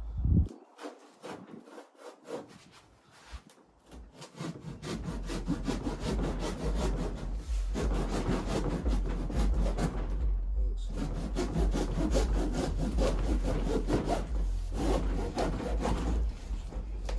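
Rapid, rhythmic rubbing strokes with a low rumble underneath, beginning about four seconds in and running in three or four long runs broken by short pauses, after a single knock at the start.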